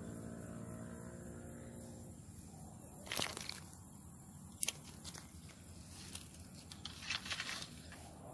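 Faint handling noises of a fishing pole and a freshly caught featherback being unhooked: a few short clicks and rustles about three seconds in, a sharp click near five seconds and a small cluster around seven seconds.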